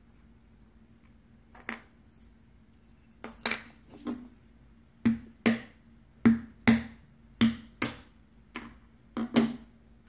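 A hard training pistol banging down onto sand dollar fragments on a wooden table, smashing the shell: about a dozen sharp knocks, sparse at first and then coming roughly twice a second.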